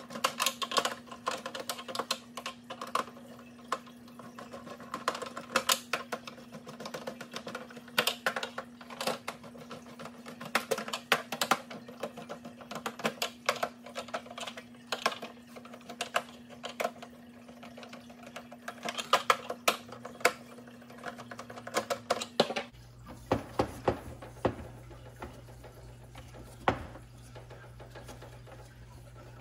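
A small screwdriver works the screws on the plastic back case of a Seiko Melodies in Motion wall clock, giving a dense run of sharp clicks and taps. About three-quarters of the way through, this gives way to sparser knocks and rubbing as paper towel is wiped over the clock's front.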